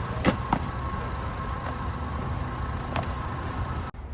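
Steady low rumble, like a running vehicle or wind on a microphone, with a few sharp clicks in the first second and one about three seconds in; it cuts off abruptly near the end.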